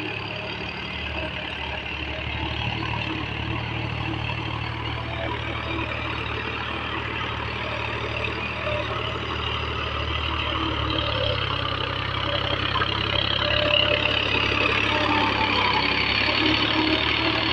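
Powertrac 435 tractor's three-cylinder diesel engine running steadily under load as it pulls a cultivator through the soil, growing louder as the tractor comes close near the end.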